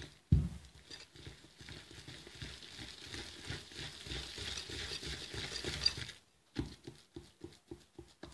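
Wire whisk stirring flour into a thick buttery batter in a ceramic bowl: rapid, continuous scraping and rubbing, with a thump just after the start. Near the end the whisk knocks against the bowl in sharper taps, about three a second.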